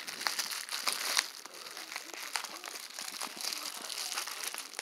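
Bubble wrap and crinkle-cut paper shred crinkling and rustling as a wrapped bottle is dug out of a box of packing and unwrapped by hand, a steady run of small crackles and clicks.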